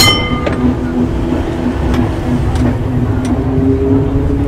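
A2 heritage tram running along the track: a low rumble under a steady motor whine, with a higher whine coming in and rising near the end. A single sharp metallic ding rings briefly right at the start.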